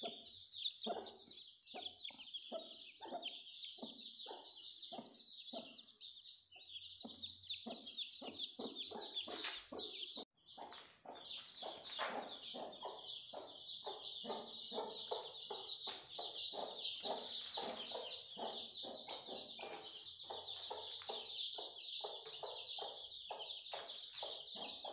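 Aseel hen clucking repeatedly over a brood of newly hatched chicks, which keep up a constant high-pitched peeping.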